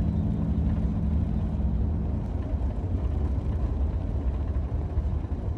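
Steady low rumble of a car driving, with the last notes of background music fading out in the first two seconds.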